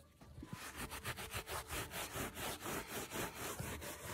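Scrubbing on a wool carpet's pile by hand, rubbing back and forth over a stain in quick, even strokes that start about half a second in.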